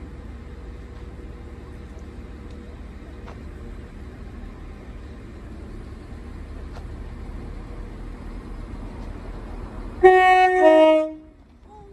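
NI Railways Class 4000 diesel multiple unit sounding its two-tone horn on the approach: a higher note followed by a lower one, about a second in all, near the end. A low steady rumble runs beneath before it.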